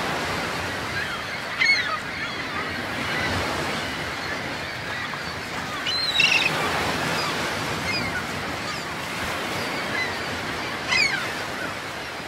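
Ocean surf washing steadily, with a bird giving loud honking calls three times, about two, six and eleven seconds in, and fainter calls in between.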